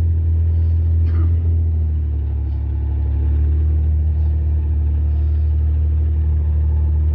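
A vehicle's engine running steadily at low speed, a constant low hum.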